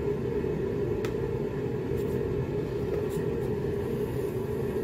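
A steady mechanical hum, with a few faint light clicks about one, two and three seconds in.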